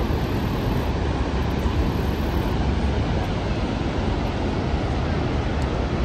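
Niagara's Horseshoe Falls: the steady rush of a great mass of falling water, an unbroken noise heaviest in a deep rumble.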